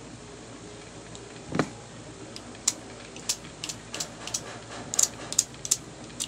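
A small metal hand tool is handled over a circuit board. There is one dull knock about a second and a half in, then a run of sharp, irregular clicks and ticks through the second half.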